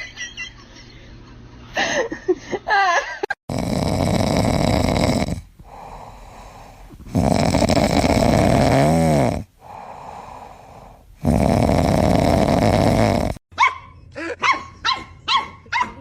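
Dog sounds: short pitched calls, then three long, loud, rough stretches of about two seconds each, then a quick run of short barks and yips near the end.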